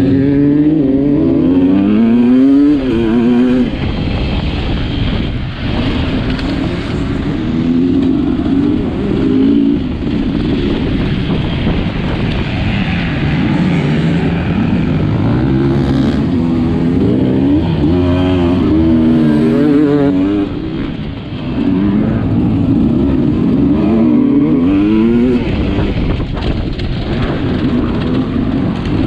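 Sherco 300 enduro motorcycle engine being ridden hard, its pitch climbing and dropping over and over with the throttle and gear changes.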